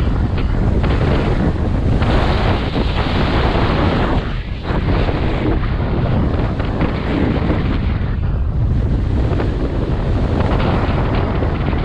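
Wind buffeting a GoPro Hero7 Black's microphone at riding speed, over the steady scrape of a snowboard carving across packed snow. The noise dips briefly twice, about four and eight seconds in.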